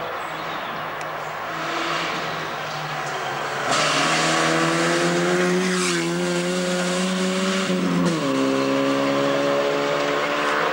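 Rally car approaching and passing close at speed on a gravel stage, its engine note climbing steadily under hard acceleration, with tyre and gravel noise beneath it. About eight seconds in the engine note dips sharply and climbs again, a gear change.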